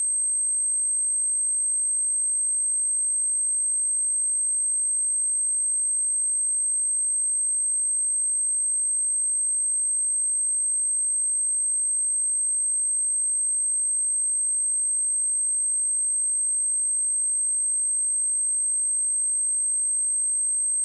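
A single continuous 8312 Hz sine-wave test tone, a steady high-pitched whistle at constant pitch and loudness, played to test a speaker and shake water and dust out of it.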